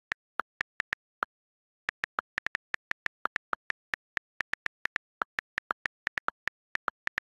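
iPad on-screen keyboard key clicks: a fast, irregular run of short clicks as text is typed, with a brief pause about a second in. Most clicks share one tone, with a slightly lower click mixed in here and there.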